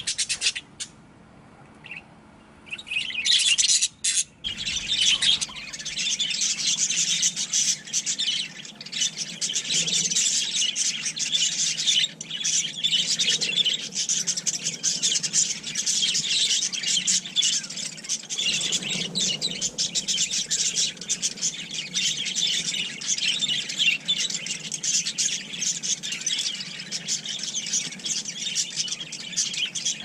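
A flock of budgerigars chattering, with dense, unbroken chirping and warbling that starts about three seconds in after a short quieter stretch.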